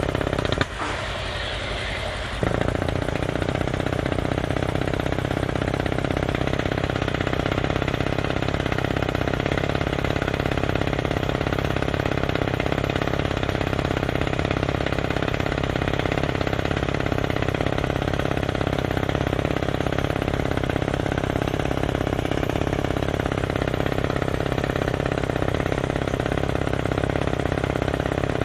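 Kaishan drilling rig working: a loud, steady, dense machine noise. About a second in, the low end drops out for a second and a half, then the full noise returns.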